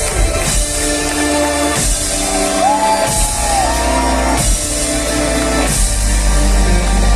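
Rock band playing live in a large hall: drum hits about every second and a half under sustained chords, with a singer holding a sliding note in the middle.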